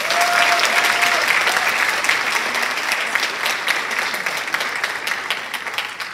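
Large audience clapping, starting strongly right after the last name of a list is read and dying away near the end.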